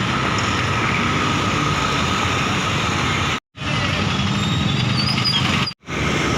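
Road traffic noise, a steady vehicle rumble with the hiss of the road, broken twice by brief silences.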